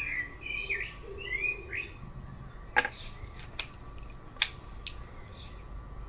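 A garden bird chirps in short calls, then three sharp metallic clicks come from an air pistol being loaded with a dart and cocked, a little under a second apart.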